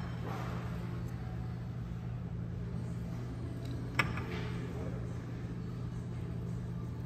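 Steady low hum in the background, with a single sharp click about four seconds in as the chopsticks knock against the bowl while stirring the noodle soup.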